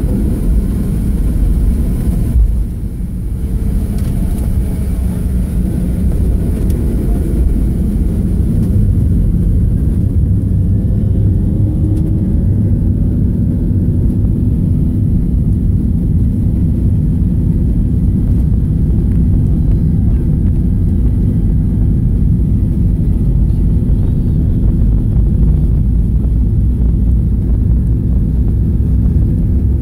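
Inside the cabin, the 737-700's CFM56-7B engines spool up to takeoff thrust, rising a few seconds in. This settles into a loud, steady roar over the rumble of the takeoff roll.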